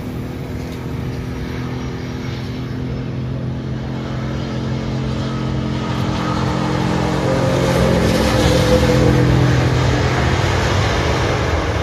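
Airbus A330-343's Rolls-Royce Trent 700 jet engines on landing: a steady engine hum with several low tones that grows louder through touchdown and the rollout, loudest a couple of seconds after the main wheels touch down.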